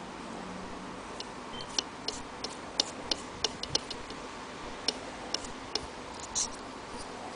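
Light, sharp clicks and ticks, about fifteen scattered unevenly, over a faint steady hiss.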